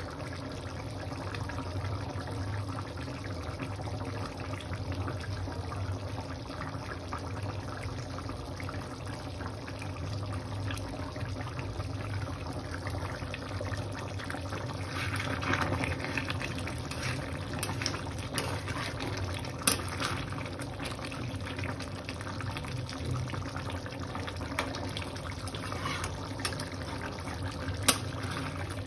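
Chicken curry bubbling as it simmers in a steel pan on a gas stove: a steady bubbling hiss with crackle, and a few sharp clicks, one about twenty seconds in and one near the end.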